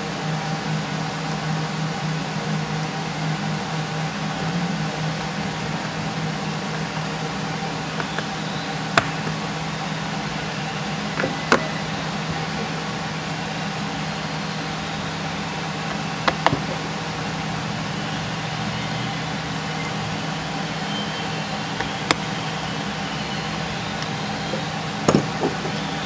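Steady low background hum with hiss, with about five faint, isolated clicks scattered through it.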